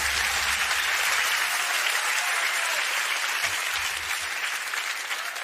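Audience applause, a dense steady clapping that cuts off suddenly near the end.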